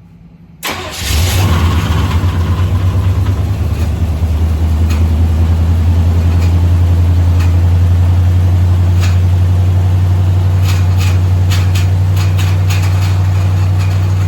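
Chevelle's carbureted engine started after the gas pedal is pumped a couple of times, catching suddenly about half a second in and settling into a steady idle. A few sharp clicks sound over the running engine in the second half.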